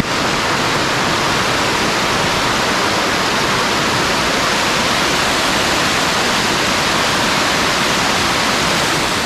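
Waterfall pouring down: a steady, even rush of falling water.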